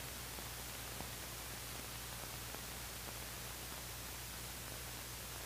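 Steady hiss with a low hum and a few faint clicks: the background noise of an old film soundtrack.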